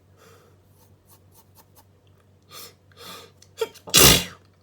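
A person's allergy sneeze: two sharp in-breaths and a catch of breath, then one loud sneeze near the end.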